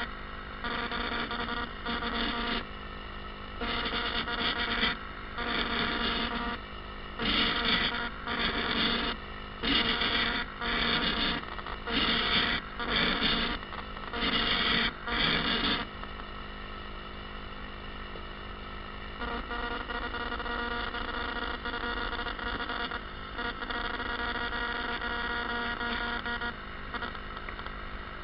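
Electronic buzzing made of many steady tones, cutting in and out in bursts of about a second for the first half, then running steadier and a little quieter.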